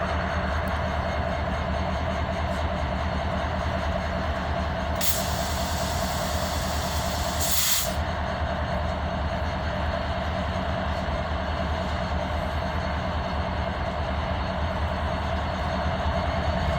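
Diesel-electric freight locomotives running steadily, a low rumble with a steady whine over it. A loud burst of hissing air from about five to eight seconds in.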